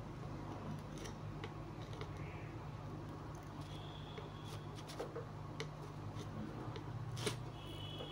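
Small clicks and taps of hand work with small tools on a power-supply circuit board, the sharpest about seven seconds in, over a steady low hum. A brief high thin tone sounds about four seconds in and again near the end.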